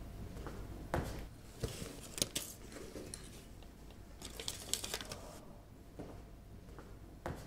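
Paper envelopes rustling and crinkling as letters are pulled from a leather handbag, in two short spells, with a few soft knocks between them.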